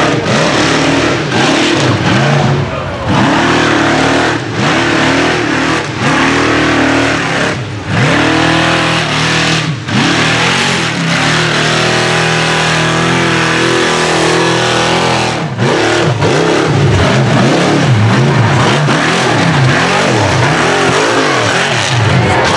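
Rock bouncer buggy's engine revving hard over and over as it claws up a steep dirt hill, its pitch swinging up and down with the throttle, with brief drops every second or two as the throttle is lifted.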